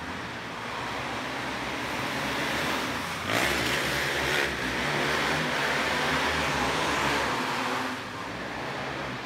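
A pack of 500cc outlaw cage kart engines racing on dirt. They grow louder as the karts pass close by about three seconds in, then fall away near the end.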